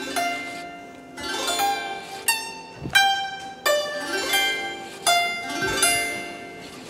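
Background guzheng music: single plucked notes, roughly one or two a second, each struck sharply and then ringing and fading away.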